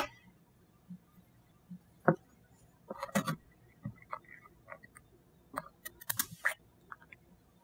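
Pump spray bottle of CA glue activator being pressed in a few short sprays, around three seconds in and again around six seconds in, with light clicks and knocks from handling the bottle on a desk.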